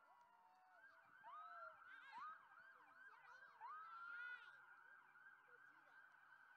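Several faint fire apparatus sirens sounding at once: slow rising wails overlapping with quicker repeated yelp sweeps.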